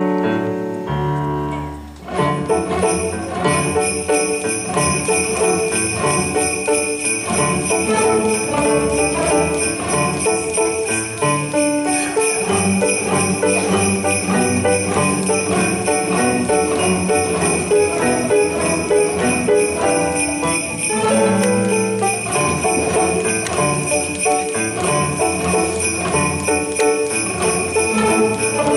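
Children's string orchestra of violins and cellos playing a lively tune, with sleigh bells shaken steadily from about two seconds in. Before the bells come in, the strings hold a chord.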